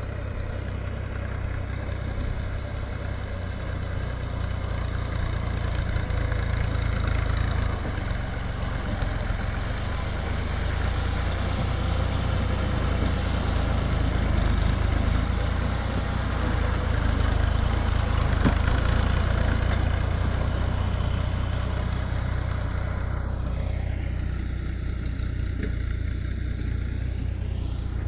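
Tractor engine running steadily while pulling a plough, a constant low drone; near the end its tone sweeps down and back up.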